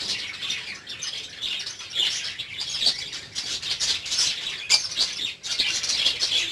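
Lovebirds chirping and chattering, with many short, sharp high calls overlapping without a break.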